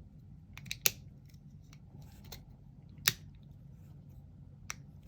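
Small plastic snap-fit model kit parts clicking as they are handled and pressed together. There are two sharp snaps, about one second in and about three seconds in, and a lighter click near the end, with faint ticks in between.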